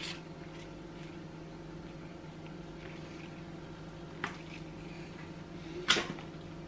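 Pruning secateurs working through a thick, woody protea stem, with two sharp snaps of the blades, a smaller one about four seconds in and a louder one about six seconds in. A steady low hum runs underneath.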